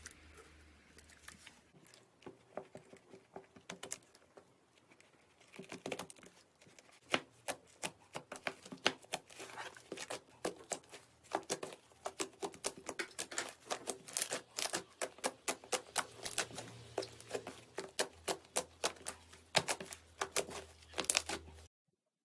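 Slime being squeezed and worked by hand, giving a dense run of sharp, irregular clicks and pops over a faint low hum. The clicks grow thicker and louder about six seconds in, and the sound cuts off abruptly near the end.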